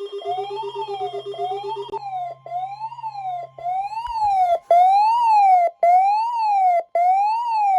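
Electronic weather-alert siren tone that sweeps up and down in pitch about once a second, signalling a severe thunderstorm warning. A rapid beeping runs under it for the first two seconds, and after about four and a half seconds the siren gets louder, with brief cut-outs.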